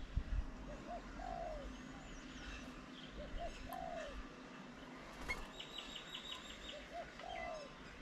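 A dove cooing: a short note and then a longer, arching coo, given three times at even spacing. About two-thirds of the way through, a small bird adds a quick run of about seven high ticks.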